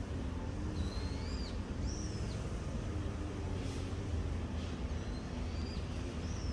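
A small bird giving a few short, high chirps, each a quick rise and fall in pitch, over a steady low rumble.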